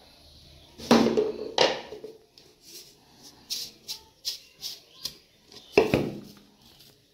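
Steel utensils being handled while turmeric is shaken and rubbed onto fish: sharp metallic knocks with a short ring about a second in and again near the end. Between them come light rattling and rustling ticks from the plastic spice packet shaken over the fish.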